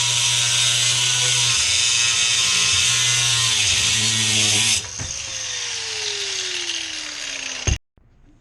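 Electric power tool running loud with a harsh hiss, then switched off about five seconds in, its motor winding down in a steadily falling pitch until the sound cuts off abruptly near the end.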